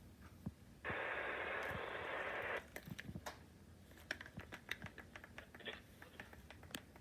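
A burst of radio static, an even hiss lasting a little under two seconds starting about a second in, followed by scattered faint clicks.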